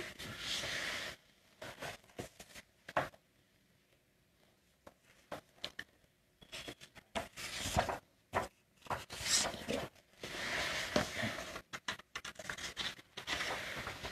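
Handling noise: fabric rustling and scraping, with scattered clicks and knocks, as a person shifts about and reaches close to the microphone.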